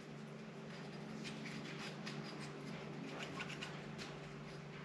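Faint rubbing and light scratching of a hand spreading oil around the inside of a two-stroke motorcycle cylinder bore, over a steady low hum.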